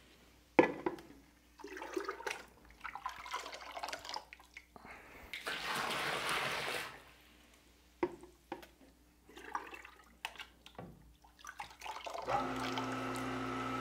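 Water being scooped out of a tank with a plastic jug: irregular splashing and dribbling with light knocks of the jug, loudest about halfway through. Near the end a small electric water pump switches on and runs with a steady hum, started by the level controller as the water drops to the 50% mark.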